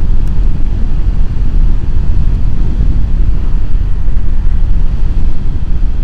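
Loud, steady low rumble of wind and riding noise on a motorcycle at about 70 km/h, picked up by a lavalier microphone with the helmet visor closed.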